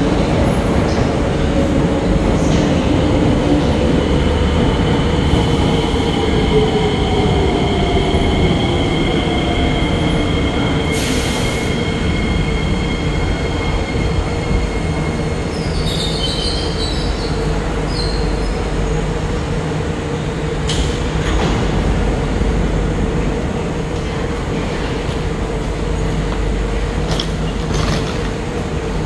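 SMRT C151B metro train pulling into the station: its motor whine falls in pitch as it brakes, with a high steady squeal over it, and it comes to a stop after about ten seconds. A steady hum continues as the train stands at the platform, with a few short clicks near the end.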